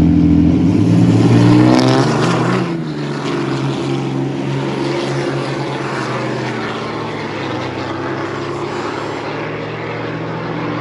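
Lifted Ram pickup's engine held at high revs on the drag-strip start line, climbing in pitch as the truck launches about two seconds in, then dropping away to a more distant engine sound as it runs down the track.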